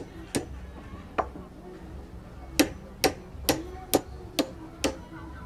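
Sharp knocking strikes: two single knocks, then a run of six in an even rhythm of about two a second.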